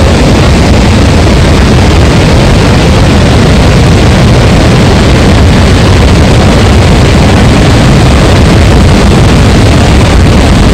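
Horseshoe Falls at Niagara Falls: a loud, steady rush of falling water, heavy in the low end.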